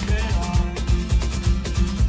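Folk-punk band playing an instrumental passage: strummed acoustic guitar over a steady cajon beat of about four thumps a second.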